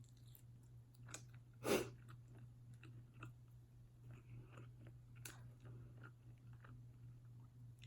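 Close-up mouth sounds of someone chewing fast food: soft wet smacks and small crunches, with one loud crunchy bite a little under two seconds in. A faint steady low hum lies under it.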